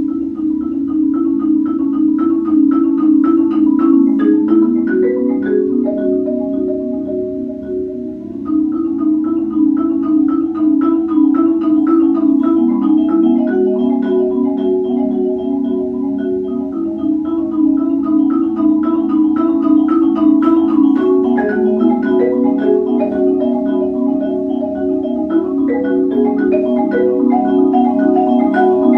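Percussion ensemble led by two marimbas, playing a fast, steady pattern of repeated mallet notes with other mallet instruments above. The music dips briefly in loudness about eight seconds in, then builds again.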